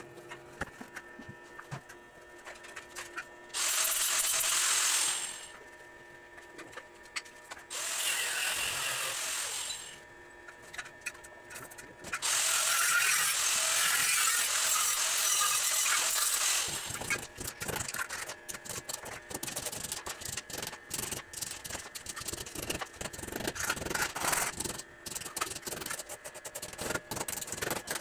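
Stick-welding arc on steel tubing, crackling and sizzling in three runs of a couple of seconds each, the longest about four seconds, each starting and stopping abruptly. After that comes a stretch of short, irregular crackles.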